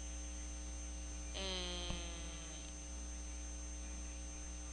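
Steady electrical mains hum with a faint high whine from the recording setup. About a second and a half in comes a short held vocal sound, like a hesitant "eh", with a single click in the middle of it.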